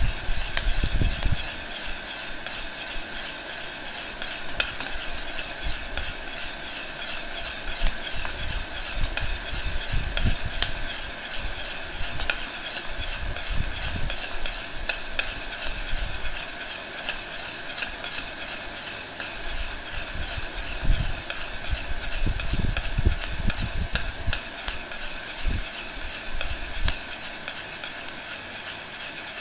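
Heat gun blowing steadily into a metal bowl of roasting coffee beans while a metal spoon stirs and scrapes them round the bowl, with scattered sharp pops from the beans going through first crack.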